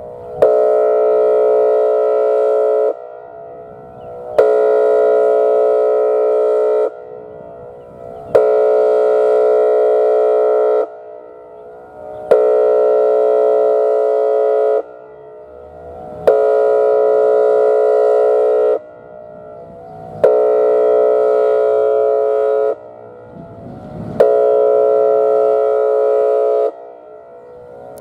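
Whelen 2805 electronic outdoor warning siren sounding its air-horn tone. It gives loud, steady horn blasts about two and a half seconds long, repeating every four seconds, each starting with a click.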